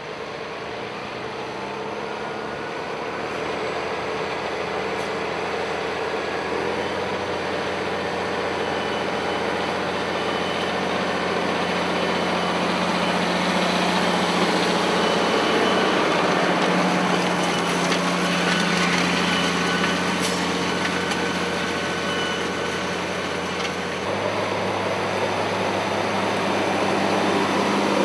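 Valtra tractor's diesel engine running steadily under load as it pulls a tine cultivator through the soil, growing gradually louder as it comes closer.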